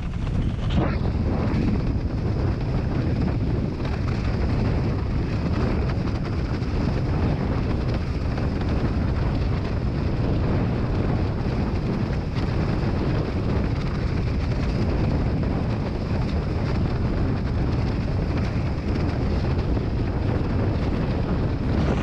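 Wind buffeting the camera microphone over the rush of water under a windsurf board planing at about 50 km/h: a steady, heavy, low rumble.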